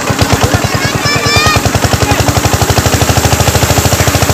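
A small engine chugging with loud, even, rapid thumps that quicken to about ten a second within the first couple of seconds and then hold steady.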